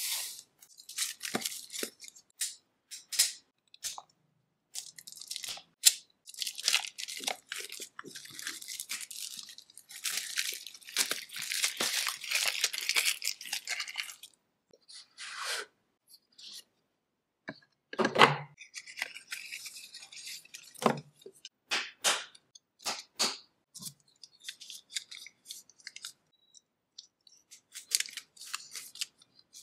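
Unboxing sounds of a smartwatch's packaging close to the microphone: the cardboard box is handled and opened, and plastic wrapping crinkles and tears in long stretches, with scattered clicks and taps. A heavier knock comes about eighteen seconds in.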